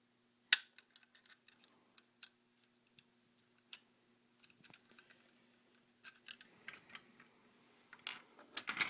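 Small plastic clicks and ticks from handling and working the taken-apart flush-button mechanism of a dual-flush toilet, with one sharper click about half a second in and a flurry of faster clicks near the end. A faint steady hum runs underneath.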